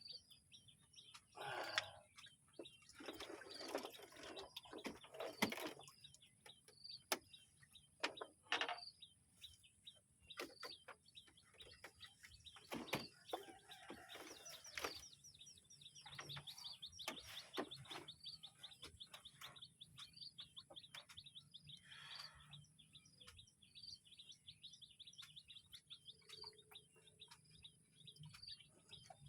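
Faint, rapid, high-pitched chirping, which grows into a dense run of quick ticks about halfway through. Scattered short clicks and knocks sound throughout.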